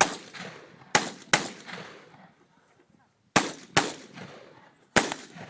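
Rapid gunshots from a shooter firing through a practical-shooting stage. There are about six shots, mostly in quick pairs about half a second apart, typical of double taps on targets, each with a short echoing tail.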